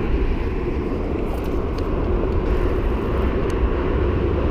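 Steady low rumble of city traffic noise.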